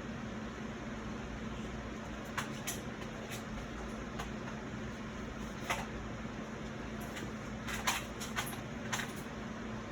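Objects being handled and moved about while searching for a laptop charger: a few scattered short clicks and knocks over a steady low hum.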